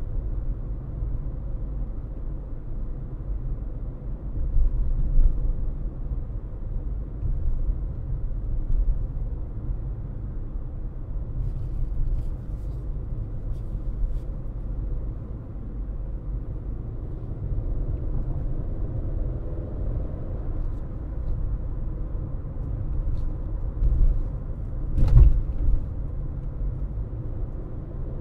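A car driving along, with a steady low rumble of road and engine noise. Late on there is a single sharper, louder thump, like the car jolting over a bump.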